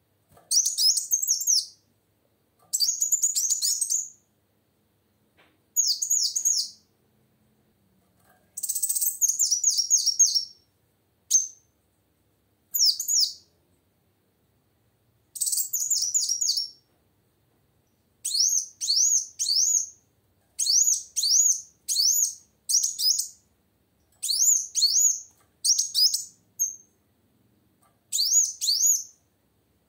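Female kolibri wulung sunbird singing: bursts of rapid, thin, high chirps, each burst a second or two long with short pauses between, the bursts coming closer together in the second half.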